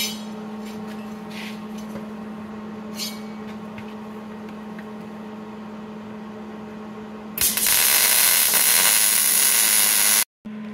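MIG welder arc welding a steel caliper bracket onto an axle tube: a loud, even hiss that starts about seven seconds in, lasts about three seconds and cuts off suddenly. Before it there is only a steady low hum and a few small handling noises as the welder gets into position.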